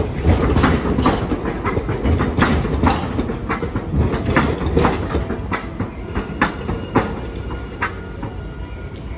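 Hiroshima Electric Railway 3900-series three-section articulated tram rolling past close by. Its wheels clack irregularly over the points and crossing rails of the station track junction above a low running rumble, and the clacks thin out and the sound fades as it pulls away in the last few seconds.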